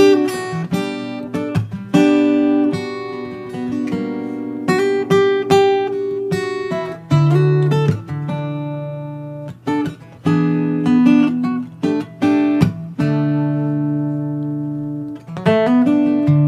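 Acoustic guitar music without singing: notes picked one after another over held low notes.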